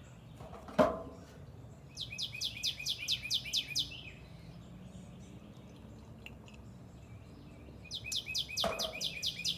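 A songbird singing a rapid series of repeated high notes, each sweeping downward, about seven a second. The song comes in two runs of about two seconds each, the second starting near the end. A single sharp knock sounds just under a second in.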